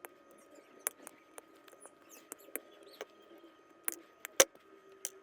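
Scattered sharp clicks and taps of small plastic and metal parts being handled, as in working on an electrical plug; the loudest click comes about four and a half seconds in.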